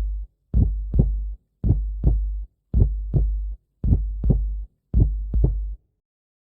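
Heartbeat-like double thumps in the music, one pair roughly every second. There are five pairs before they stop about six seconds in.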